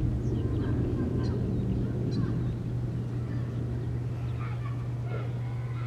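Tiger hacking and retching to bring something up, which the uploader takes for a hairball. It is a rough, low sound, heaviest in the first two seconds or so.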